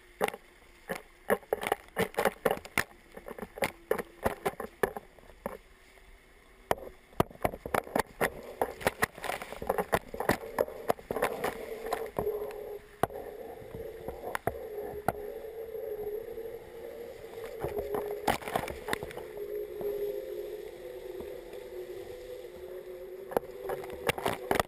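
Sea spray and waves breaking over a camera low on the hull of an IMOCA 60 racing yacht sailing fast through rough water. A quick run of sharp splashes and slaps of water hitting the housing gives way, about halfway through, to a steadier rush of water with a wavering hum underneath.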